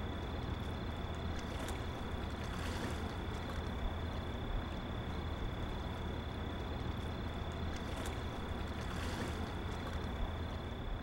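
Steady low rumble with an even hiss and a faint, constant high whine, with a few faint ticks; it fades away near the end.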